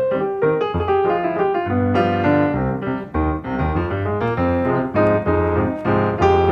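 Background piano music: a steady run of notes over a bass line.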